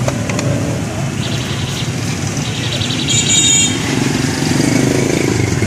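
Street traffic with motorcycles running nearby, a steady engine rumble throughout. About three seconds in there is a brief, loud high-pitched tone.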